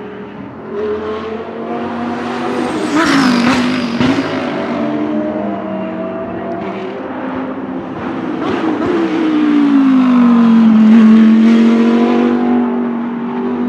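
GT3 race car's V10 engine running hard on track, its pitch climbing and dropping with the throttle and gear changes. A couple of sharp cracks come about three to four seconds in. Later the pitch falls and then holds steady.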